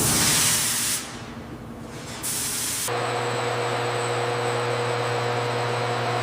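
A loud burst of hissing, a short pause, and a second shorter hiss, then a steady machine hum with several unchanging tones that starts about three seconds in.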